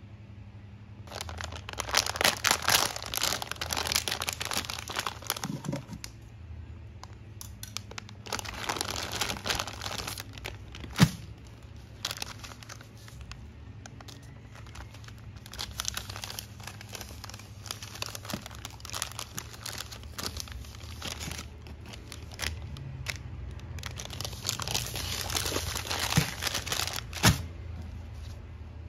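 Crinkly wrapping being handled, rustling and crackling in four long bursts with pauses between. Two sharp clicks come through, one around the middle and one near the end.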